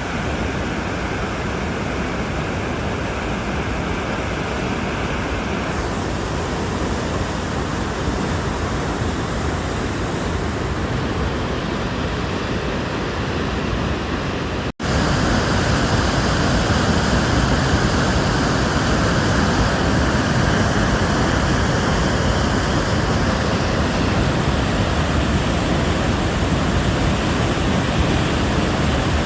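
Kivach waterfall: a steady, dense rush of falling water. It cuts out for an instant about halfway through and comes back slightly louder.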